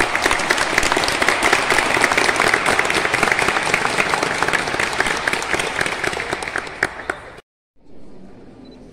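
A group of people applauding, dense clapping that eases a little and then cuts off abruptly about seven seconds in, followed by a much quieter stretch.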